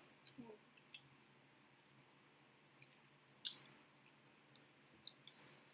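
Scattered faint mouth clicks and smacks of someone chewing food, about half a dozen, with one sharper click about three and a half seconds in, over a low steady hum.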